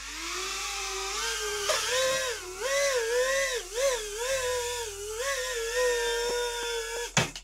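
ITSY FPV drone's motors and ducted propellers spinning up and hovering: a loud, high whine that rises as it lifts off, then wavers up and down in pitch with the throttle and cuts off suddenly near the end.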